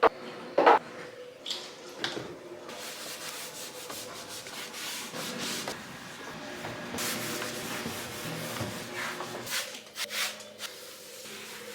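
A hard surface being scrubbed by hand in a run of uneven rubbing strokes, with a sharp knock under a second in.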